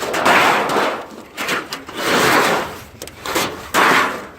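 Scrap aluminum siding being dragged out of a pickup bed and tossed onto a scrap pile: repeated scraping, crinkling swishes with clatters, about one a second.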